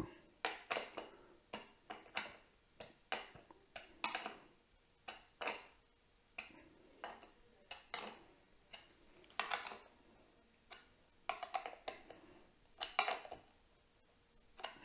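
Small metal parts clicking and tapping as ring-terminal leads, nuts and washers are handled and fitted onto the terminal studs and busbars of LiFePO4 prismatic cells: an irregular series of light, short clicks, one or two a second.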